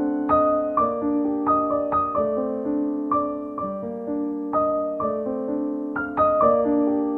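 Background piano music: a gentle melody of single struck notes, about two a second, each left to ring over held chords.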